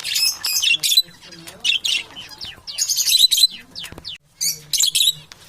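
Parrots squawking and chattering in short, harsh bursts, about four groups of calls with brief pauses between.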